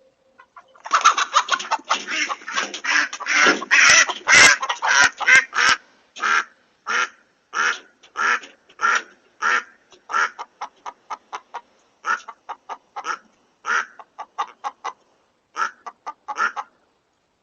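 Chicken squawking in alarm during a fox attack. A dense flurry of loud squawks comes first, then it slows to single squawks about one or two a second, which stop shortly before the end.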